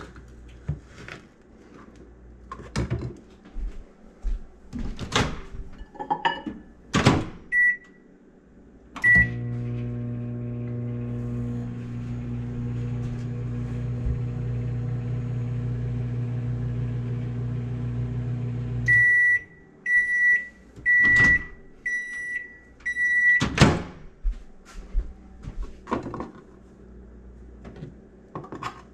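Microwave oven in use: two keypad beeps start it, it hums steadily for about ten seconds, then it gives five end-of-cycle beeps and the door is clicked open.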